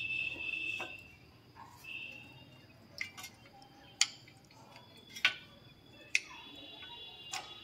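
Sharp metallic clicks and taps, about six spread over several seconds, as the rear disc brake caliper of a Bajaj Pulsar 150, fitted with new pads, is handled and set back in place.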